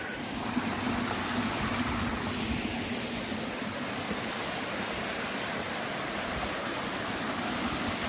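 Steady rushing of water from a mountain stream and its small cascades.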